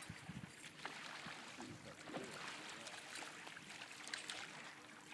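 Faint water lapping at a river's surface, with a few small splashes as a hooked salmon thrashes near the surface.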